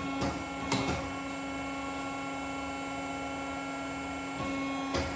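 Pull-test dyno bench running with a steady mechanical hum as it takes up load on a rope-rigged carbon spreader bar, with a couple of light knocks in the first second as the rigging settles and another near the end. The hum grows a little louder shortly before the end.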